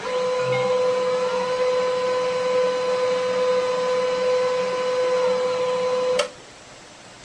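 A small machine's motor running with a steady, even whine, then cutting off suddenly about six seconds in.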